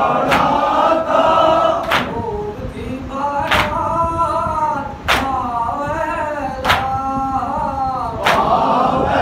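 Men singing a noha, a Shia mourning lament, in chorus, with a sharp chest-beating slap (matam) in unison about every one and a half seconds, six strikes in all.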